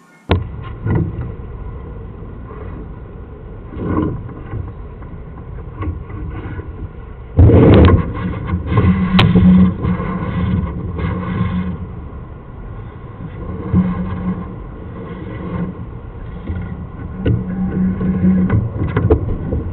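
Sewer inspection camera's push cable being fed down a drain pipe: a steady rumble with scrapes and knocks, a loud thump about seven seconds in, and a low hum that comes and goes.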